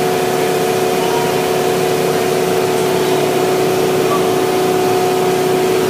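Ice-plant machinery running: electric motors and mechanical drive giving a steady hum that holds one constant pitch over a rougher rumble.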